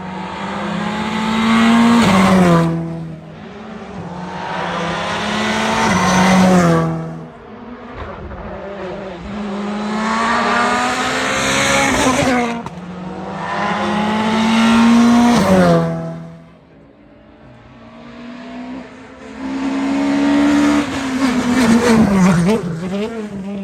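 Rally car engines revving hard at high pitch, five loud swells that each climb in pitch and then drop sharply as the car passes or lifts off.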